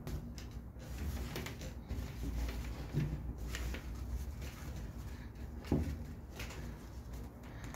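Thick natural-fibre rope being wound around a wooden branch by gloved hands: rustling and scraping of rope on wood, with a light knock about three seconds in and a louder one near six seconds.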